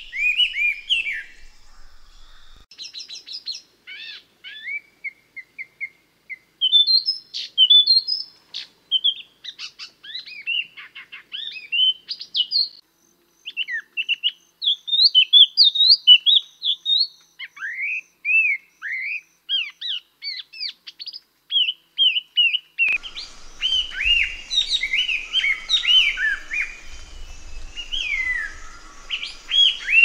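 Kon Ka Kinh laughingthrush (chestnut-eared laughingthrush) calling: a run of short, varied whistled chirps and quick up-and-down phrases with brief pauses. A little over twenty seconds in, a steady background hiss with a faint high drone comes in, and the calls come thicker and louder.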